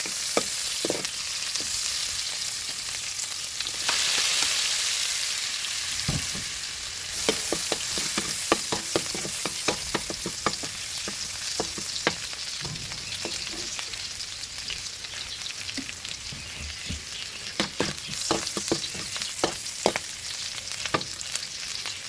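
Food sizzling as it fries in hot oil in a pan, with a cooking utensil clicking and scraping against the pan in runs of quick strikes as it is stirred.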